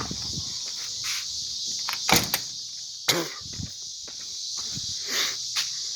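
A steady high hiss with several sharp knocks and clunks scattered through it.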